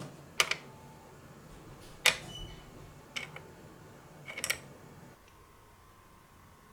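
Light, sharp clicks and taps of small hard objects: four of them a second or so apart, the last a quick little rattle of several clicks.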